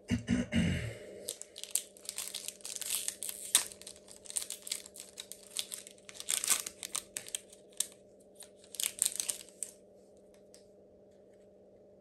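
Foil wrapper of a Pokémon trading card booster pack being torn open and crinkled in the hands, in quick crackly bursts that stop about ten seconds in. A low bump of handling right at the start.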